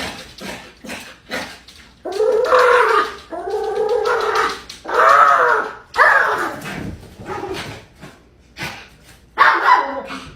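A dog giving a series of drawn-out whining, howl-like calls that rise and fall in pitch, with short yelps in between.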